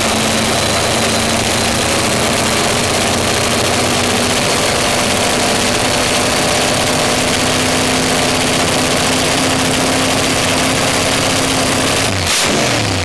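Car engine idling steadily. Near the end there is a sharp click and the engine note drops.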